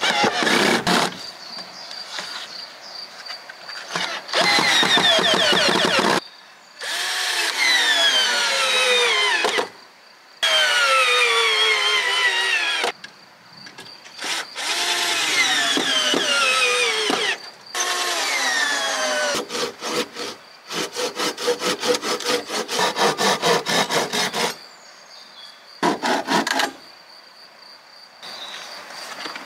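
Power drill working wood in short bursts, its pitch falling as the bit or screw bites. More than halfway through there is a stretch of quick rhythmic strokes, about four a second.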